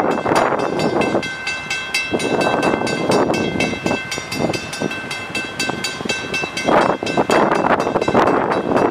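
Approaching diesel train with a bell ringing in rapid strokes over its rumble. The bell stops near the end, and the train noise then grows louder.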